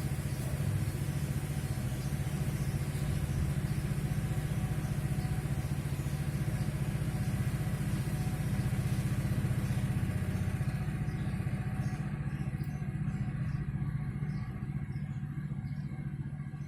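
A steady low mechanical hum, like a motor running, with no clear birdsong above it.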